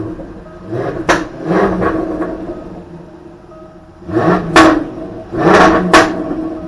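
Jaguar F-Type R's supercharged 5.0-litre V8 on its stock exhaust, revved in four short blips in two pairs. Sharp exhaust cracks come as the revs fall.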